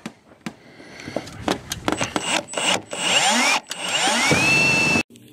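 Power drill driving screws into corrugated steel wall cladding: a run of clicks and knocks, then the motor whining and rising in pitch as it spins up several times, cutting off suddenly near the end.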